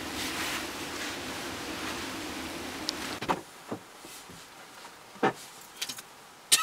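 Steady restaurant room tone with a low hum, which cuts off about three seconds in to the quieter hush of a car interior. Over that hush come a few scattered soft clicks and knocks.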